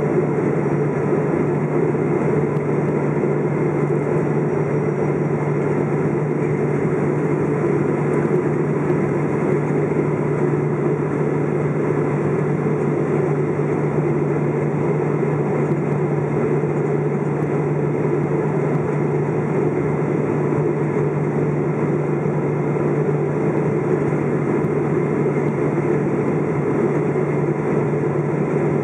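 Steady cabin roar of a KLM Boeing 777-200 on final approach, heard from a window seat over the wing beside its GE90 engine: engine drone and rushing air with a low, even hum, unchanging throughout.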